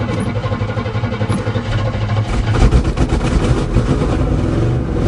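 1977 GMC truck's engine running steadily right after being started with the key, on its first start after sitting for seven years.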